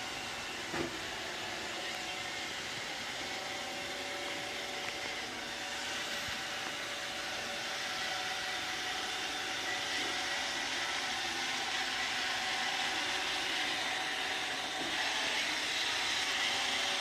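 iRobot Roomba 655 robot vacuum running, a steady whirr of its motors and brushes that grows slightly louder toward the end, with a light knock about a second in.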